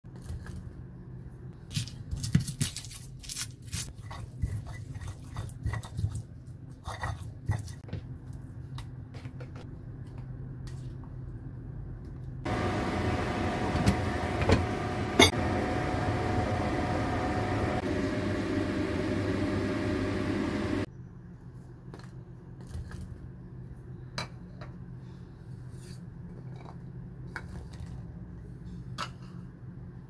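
Shallots and garlic cloves dropping and clicking onto a stone mortar over a steady low hum. About twelve seconds in, a louder steady whir starts abruptly and runs for about eight seconds, with a few sharp metal clinks of tongs, then cuts off.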